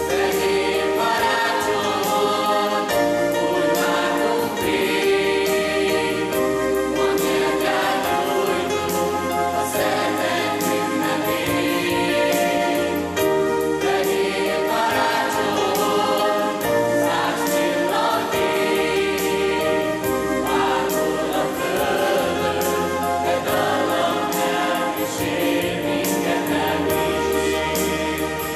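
Mixed youth choir singing a Christmas song together in held, sustained notes, over an accompaniment with a low bass line that changes note about every two seconds.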